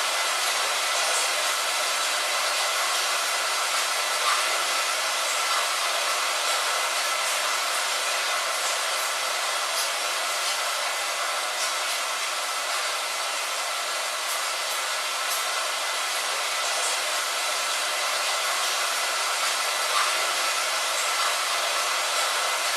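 Steady rain on a window: an even, hissy patter with no low rumble, with scattered faint ticks of single drops.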